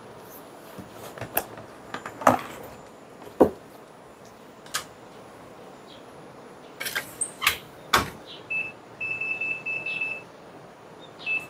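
Laundry being handled at a top-loading washing machine: scattered knocks and clicks, then the machine's control panel beeping, one short beep followed by a string of quick beeps and one more near the end, as the wash is set.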